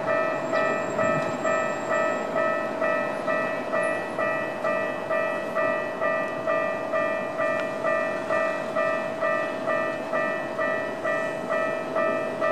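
Railway level-crossing warning bell ringing steadily, a little over two evenly spaced, ringing strokes a second, sounding the approach of a train.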